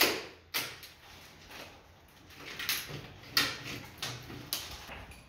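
Door frame being dismantled by hand: a string of irregular rattles, scrapes and knocks as the white frame pieces are pried loose and pulled out of the doorway.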